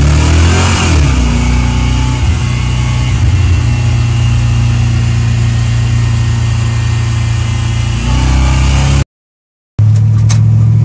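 LS 5.3 V8 swapped into a Toyota Hilux, heard from inside the cab: it revs up and falls back in the first second or so, then runs steadily while driving, with a small rise in revs near the end. It cuts out for about half a second and comes back running steadily.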